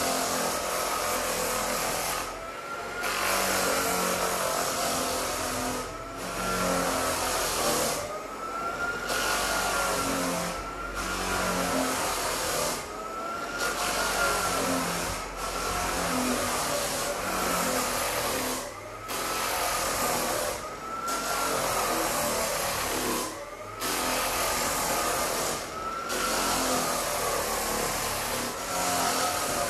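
Walk-behind drum floor sander running as it is pushed up and back over old timber floorboards. Its pitch rises and falls in a slow cycle every couple of seconds, with brief drops in level every two to three seconds.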